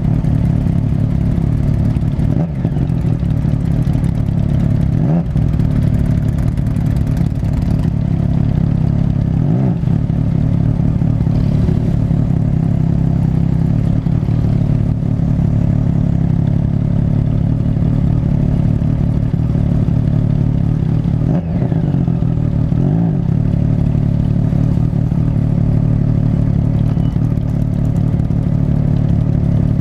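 Motorcycle engine running steadily at riding speed. The note briefly dips and shifts pitch a few times.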